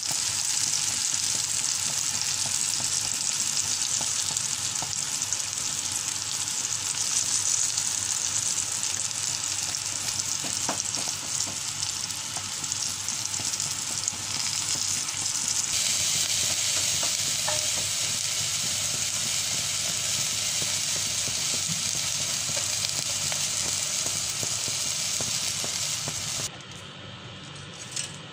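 Battered fish roe shallow-frying in hot oil in a pan: a steady sizzle that drops off sharply about two seconds before the end.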